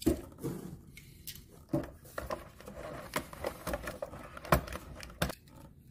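Hands handling a clear plastic blister tray and die-cast toy cars: a scattered series of light plastic clicks and crackles as a car is set into the tray and the next one lifted out.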